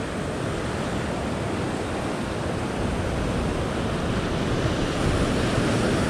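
Ocean surf breaking and washing across a rock shelf, a steady rush of water that swells a little near the end.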